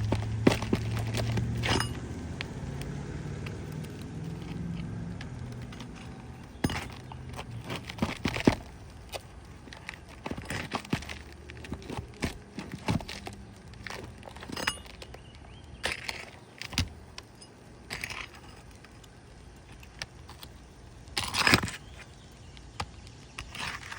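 Roof snake (a metal shingle-removal bar) clinking and scraping against asphalt shingles and nails as roofing nails are pried out: a run of irregular sharp taps and scrapes, with a longer scrape about three seconds before the end. A low rumble runs under the first few seconds.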